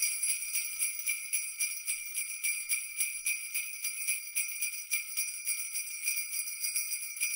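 Sleigh bells jingling in a steady, even rhythm, about four or five shakes a second.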